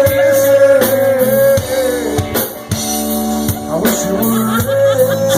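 Live rock band playing an instrumental passage: a long held lead note that bends in pitch over steady bass and a drum beat.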